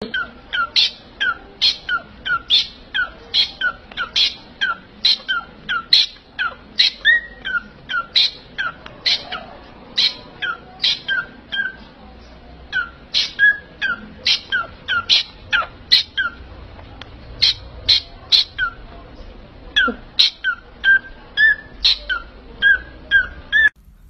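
Pet parrot calling over and over, about two short, sharp calls a second, each sliding down in pitch.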